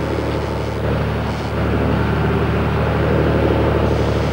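Fishing boat's engine running steadily at trolling speed, about 7 to 8 knots: a constant low drone.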